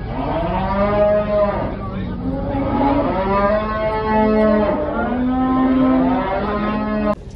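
Cattle mooing: a run of long, loud moos almost back to back, the last cutting off suddenly near the end.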